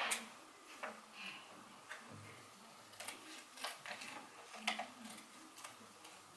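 Scissors snipping paper, a few faint, separate snips and clicks spread about a second apart, with light rustling of paper and tape.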